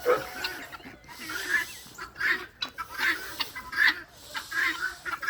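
Farm poultry calling agitatedly, a steady string of short, harsh calls a few times a second.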